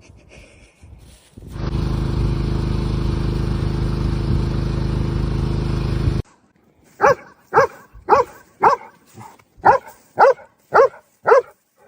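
A loud, steady mechanical whooshing noise with a low hum runs for about five seconds and cuts off suddenly. About a second later a dog starts barking in a steady run of about nine barks, roughly two a second.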